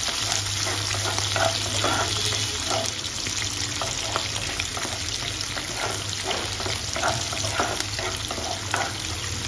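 Sliced onions frying in oil in a nonstick kadhai on medium flame, sizzling steadily while a wooden spatula stirs them, scraping and tapping against the pan at irregular intervals.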